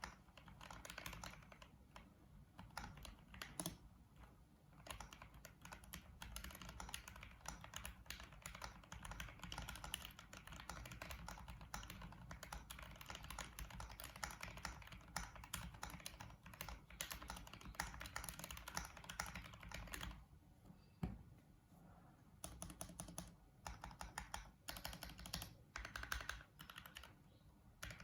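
Typing on a 40% mechanical keyboard with Gateron Pro Red linear switches and MT3 keycaps: a fast, dense run of keystrokes. About two-thirds through, the typing pauses for about two seconds, then resumes in shorter runs.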